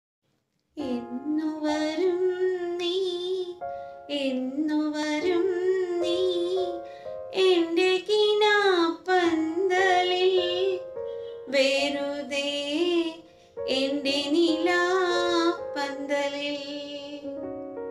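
A woman singing a slow, melodic song with vibrato, in phrases broken by short pauses, over steady held backing notes.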